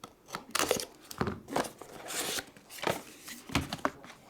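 Hands opening trading-card box packaging: short bursts of tearing and crinkling mixed with scattered clicks and taps.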